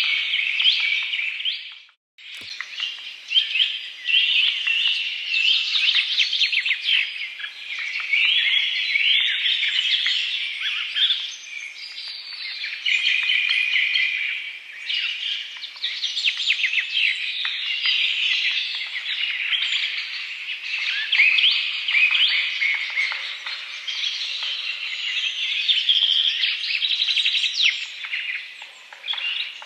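A dense chorus of many songbirds chirping and trilling, with overlapping calls. It drops out for a split second about two seconds in.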